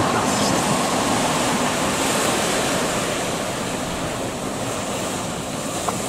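Sea surf washing in a steady rush of broad water noise, easing slightly over the few seconds.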